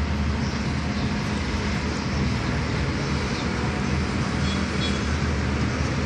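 Steady low rumble of traffic noise, with no separate drips standing out.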